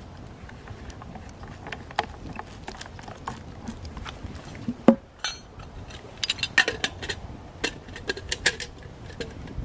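Wood campfire crackling with scattered pops, mixed with metal clinks and knocks as a flask and a small steel pot with its lid are handled. There is one sharp knock about five seconds in and a quick run of clinks in the last few seconds.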